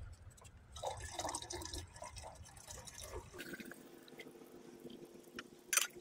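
Ferrous sulfate solution poured from a glass beaker into a tall glass beaker of gold-bearing aqua regia solution, trickling and splashing, then a faint steady tone as it settles; this is the ferrous sulfate being added to drop the gold out of solution. A short sharp click comes near the end.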